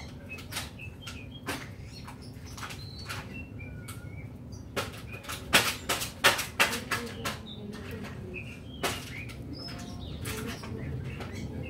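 A run of sharp clicks and light knocks, most of them bunched about five to seven seconds in, with small birds chirping.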